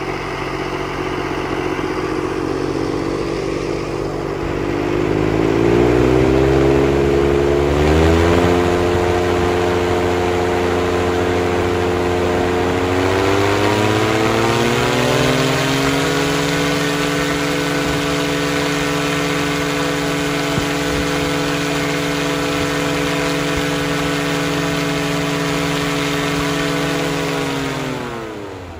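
Viking 90 aircraft engine and propeller of a powered parachute running up during a static thrust test. The engine speed rises in two steps over the first half, holds steady at high power, then winds down near the end.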